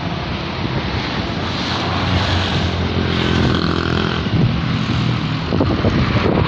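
Busy main-road traffic going past, a vehicle's engine hum swelling and fading about two to four seconds in, with wind buffeting the microphone.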